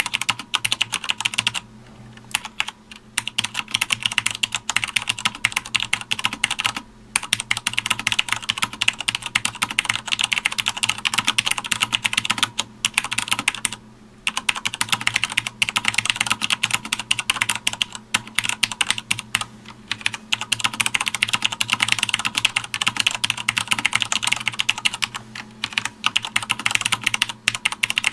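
Fast, continuous typing on a Sanwa Supply SKB-MK2BK mechanical keyboard: a dense stream of key clicks and clacks, broken by a few short pauses of under a second.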